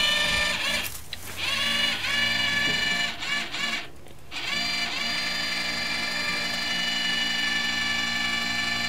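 Brushed DC gearmotor with a 3D-printed pulley whining steadily as it winds up a wire to lift a sliding coop door. The whine cuts out briefly about a second in and again around four seconds in, and each time it starts back up with a rising pitch.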